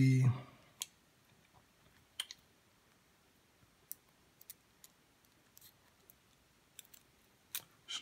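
Small metallic clicks and taps, irregular and a few in quick pairs, from lock-picking tools, a tension wrench and a rake pick, being fitted into a cheap padlock's keyway and handled against the lock body.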